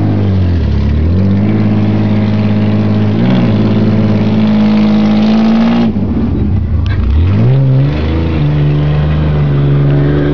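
Ford Ranger pickup's engine revving hard in deep mud, held at high revs, with the revs falling sharply and climbing back twice, about a second in and again about six seconds in.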